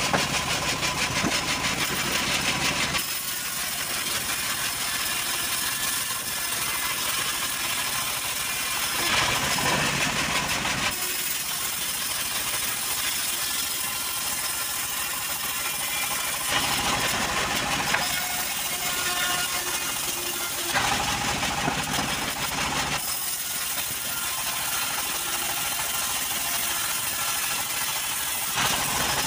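Home-built vertical band saw running and ripping johar timber planks lengthwise, its machine noise steady throughout. The sound swells into fuller, louder stretches several times as the boards are fed through.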